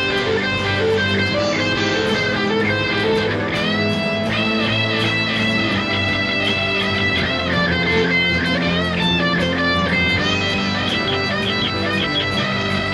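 Electric guitar solo on an Ibanez hollow-body: sustained lead notes with string bends over a steady chord-and-bass accompaniment.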